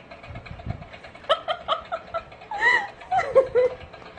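A person laughing: a run of quick giggles about a second in, then more laughter with a rising-and-falling pitch near the middle and toward the end.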